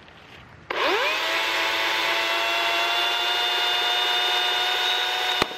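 DeWalt cordless electric chainsaw switched on: its motor spins up, rising quickly in pitch, then runs at a steady high whine for about four and a half seconds. Near the end a sharp crack as the chain strikes the cap of a glass Coke bottle, then the motor cuts off.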